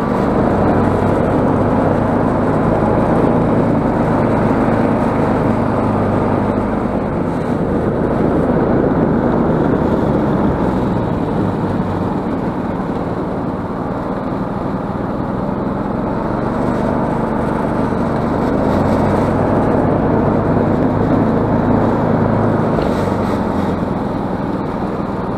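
Snowmobile engine running under way as it rides along a snow track, easing off a little midway and picking up again.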